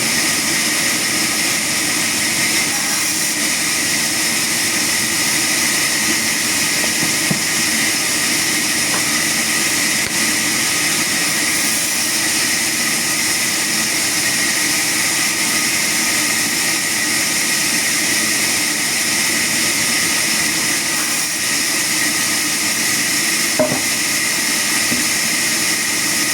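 Sawmill machinery running steadily with a constant mechanical whine, with a couple of faint knocks.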